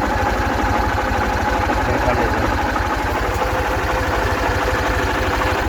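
Engine-driven corn-shelling machine running steadily: a continuous low throbbing engine note under a steady mechanical hum.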